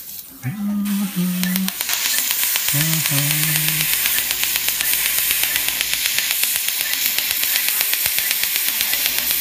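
Fotona LightWalker Er:YAG dental laser ablating decay in a child's molar: a rapid, steady run of popping clicks over a hiss of water spray, building up within the first two seconds.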